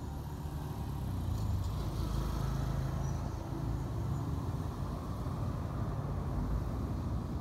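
Steady low vehicle rumble, with no distinct knocks or tones.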